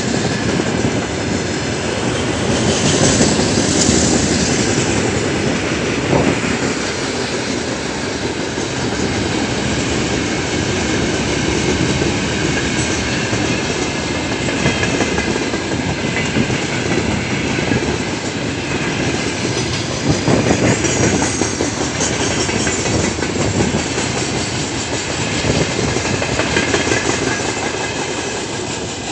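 The wagons of a long freight train, empty container flatcars and open gondolas, roll past close by: a steady rumble of wheels on rails that swells louder twice.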